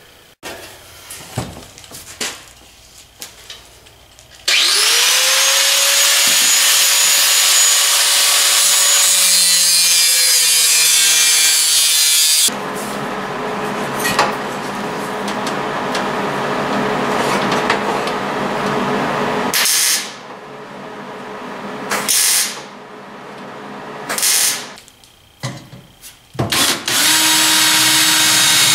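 Handheld electric power tool, most likely an angle grinder working steel: it spins up with a rising whine about four seconds in and runs with a loud hiss for about eight seconds, then runs again more heavily, stops and starts in several short bursts, and spins up once more near the end.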